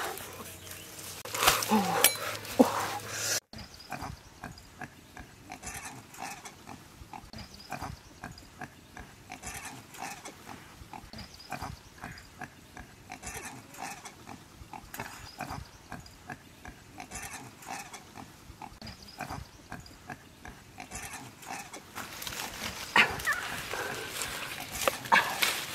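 Piglets grunting in a burrow: many short, irregular grunts, several a second. Louder, busier sound comes in near the end.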